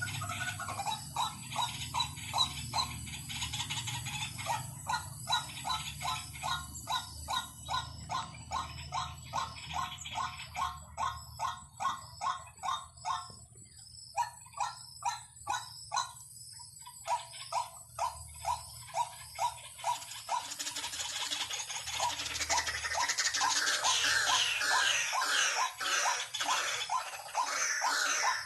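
White-breasted waterhen calls used as a decoy call: a pitched note repeated about twice a second, thinning out around the middle, then turning louder and busier near the end.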